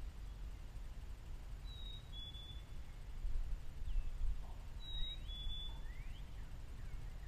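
Low rumble of wind on the microphone, with a songbird whistling a clear two-note call twice, a higher note then a slightly lower one, about two seconds in and again about five seconds in.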